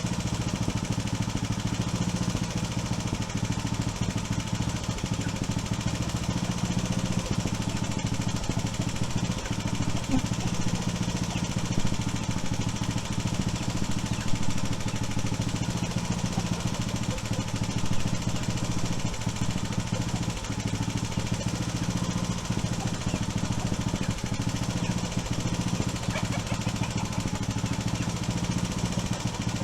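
A small engine running steadily at an even speed, with a few brief knocks about halfway through.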